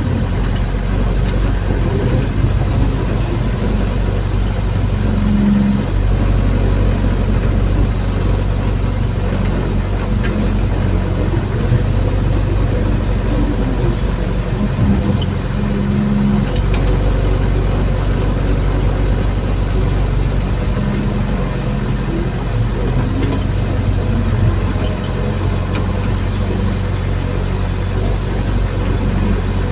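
Hydraulic excavator's diesel engine running steadily inside the cab, with the note swelling briefly several times as the hydraulics take load while the arm and bucket dig.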